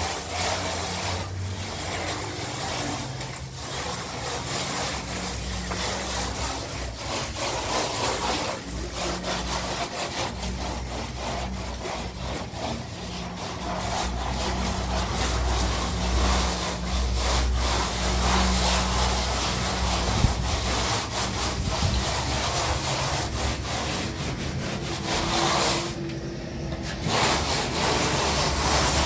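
Hand float rubbing over a damp plastered wall, scraping back and forth in repeated strokes.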